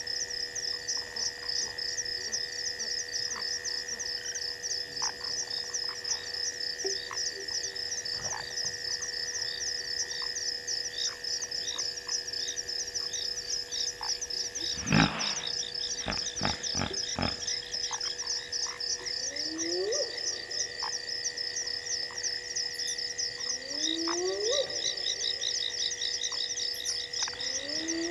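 Night chorus of frogs and insects: a rapid pulsing trill high up and steady ringing tones, with a few rising calls in the second half. About halfway, a sharp crack is followed by several lighter snaps.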